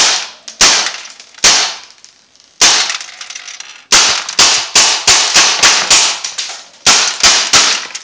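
Crosman AK1 CO2 BB rifle firing about fifteen semi-auto shots, each a sharp crack with the BB striking the painted metal mesh of a laptop cooling pad. The shots come about a second apart at first, then quicken to about three a second from about four seconds in.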